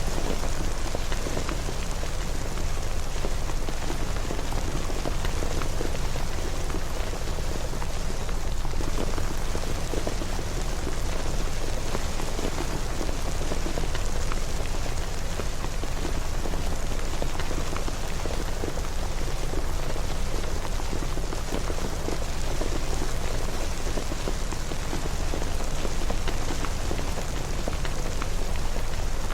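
Steady rain falling, an even hiss with dense small drop patters and a low rumble beneath, unchanging throughout.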